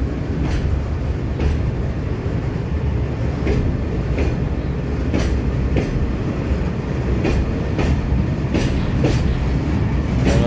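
Empty ballast hopper wagons of a freight train rolling past close by: a steady low rumble, with the wheels clacking over rail joints at irregular intervals.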